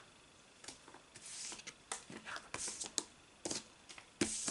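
Hands handling Pokémon trading cards: short papery swishes of card against card and light taps, the loudest swish near the end.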